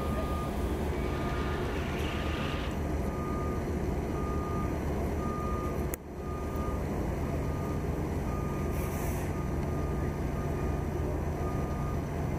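Construction vehicle's backup alarm beeping: one steady tone repeating about three times every two seconds, over a steady low engine hum.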